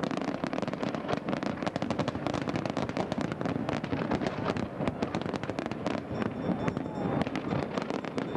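Fireworks crackling and popping: a dense, continuous run of small sharp bangs.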